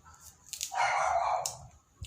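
A dog barking once, a drawn-out bark under a second long, with a few sharp clicks around it.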